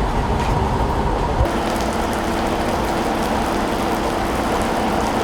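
Steady street noise of idling vehicle engines with a constant hum, the sound changing abruptly about a second and a half in.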